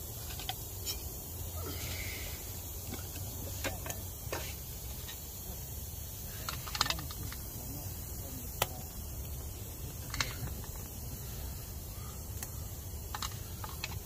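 Wood fire crackling in a small wood-burning tent stove: irregular sharp pops and ticks, about ten, over a steady low rumble of wind.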